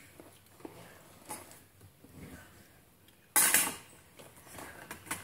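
Metal kitchen utensils clinking faintly as they are handled, with a short louder clatter about three and a half seconds in.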